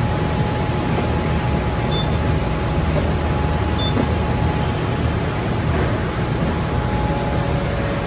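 Powered conveyor line of a print-and-apply box labelling system running steadily: a constant low rumble and hum with a steady whine that shifts lower near the end. A short high hiss sounds about two seconds in.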